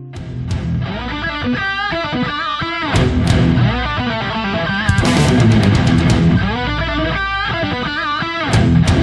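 Background music: a guitar-driven rock track whose lead guitar plays bent, wavering notes, starting abruptly at the outset.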